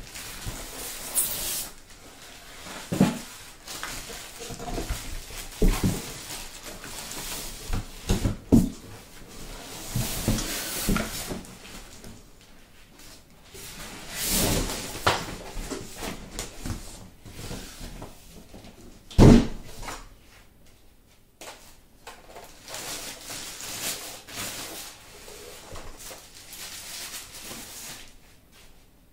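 Packaging and parts being handled during an unboxing: cardboard and wrapping rustling, with scattered knocks and thumps. The loudest is a single sharp knock about two-thirds of the way through.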